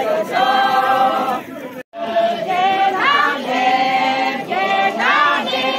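A group, mostly women, singing a traditional Yimkhiung Naga chant-like song together in long held notes. Just under two seconds in the sound cuts out for an instant and the singing resumes.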